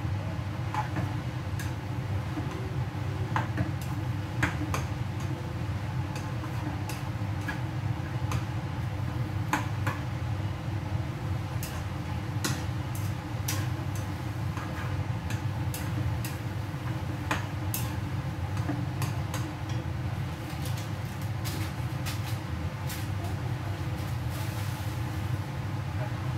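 Kitchen background noise: a steady low hum with light clicks and clinks scattered irregularly throughout.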